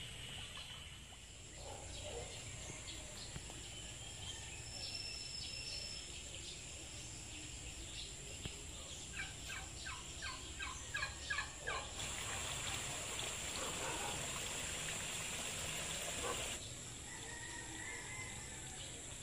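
Farm poultry calling in a rapid run of repeated notes, the loudest sound here, about two-thirds of the way in. It is followed by a few seconds of steady hiss that stops abruptly.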